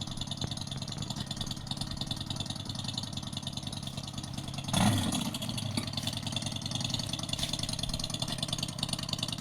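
Simulated motorcycle engine sound from a Citycoco electric scooter's sound-effect system, a steady idle-like rumble with one brief rev about five seconds in.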